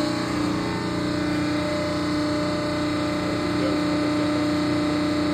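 DAVI four-roll hydraulic plate roll running, its hydraulic pump and motor giving a steady hum with a constant whine.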